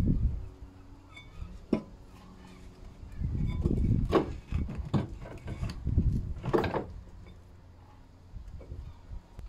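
Clunks and metallic rattling of a front strut assembly, new shock absorber with its coil spring, being worked up into the wheel arch and knocked into the hub carrier. A knock at the start and a sharp click just under two seconds in, then a busy run of knocks and clatter in the middle.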